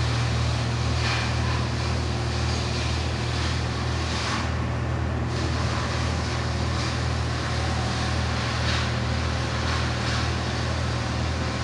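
A steady low machine hum, deep and unchanging, with an even hiss over it.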